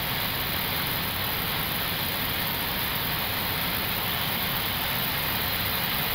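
Steady rushing noise inside the cockpit of an Airbus A321neo in flight: airflow and cabin ventilation, even and unchanging.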